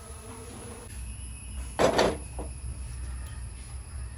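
Metal cookware clanking on a gas stovetop: two sharp knocks close together about two seconds in and a softer one just after, over a low steady hum.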